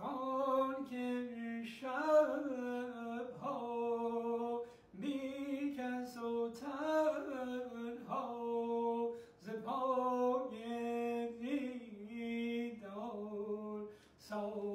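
Unaccompanied male voice singing a Persian traditional vocal line. Long held notes are decorated with quick turns and dips in pitch, with brief breaths between phrases.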